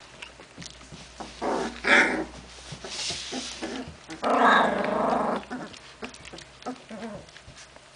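A litter of young Hungarian Vizsla puppies calling out as they jostle in a heap. There are short cries about one and a half to two seconds in and again near three seconds, then a louder cry lasting about a second just after four seconds, with soft scuffling between.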